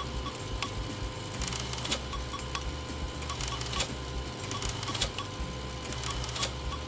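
Open-frame RepRap-style desktop 3D printer running a print: its stepper motors whine in steady tones as the print head and bed move, with irregular short clicks and ticks.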